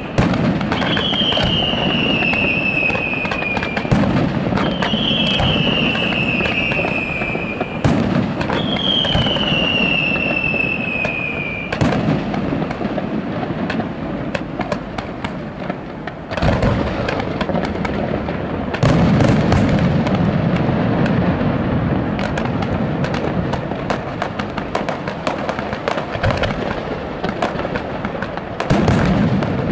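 Aerial fireworks display: shells bursting with a dense, continuous crackle and bangs. In the first part come four whistles, each falling in pitch, about four seconds apart. The bangs grow heavier about sixteen and nineteen seconds in and again near the end.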